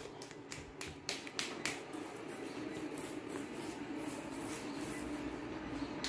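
Light clicks and short scrapes of a razor blade working at dried glue on a plastic part, several in the first second and a half, then only a faint steady hum.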